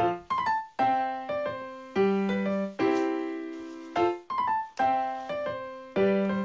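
Background music: a light keyboard tune of short struck notes that fade away, its phrase coming back about every four seconds.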